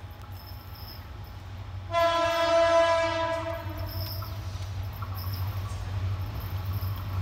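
Approaching diesel locomotive sounding one long horn blast that starts about two seconds in and then fades, over a steady low rumble of the oncoming train.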